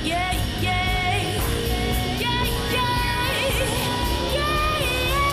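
A woman singing a Korean pop ballad live at a microphone, her voice gliding between held notes over band accompaniment.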